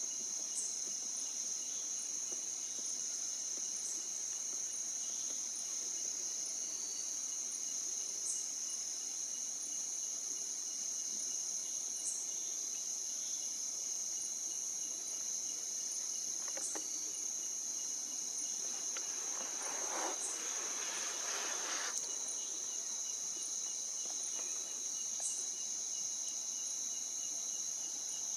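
Insects chirring in one steady, high-pitched drone, with a short sharp tick about every four seconds. About two-thirds of the way through there is a brief rustling hiss.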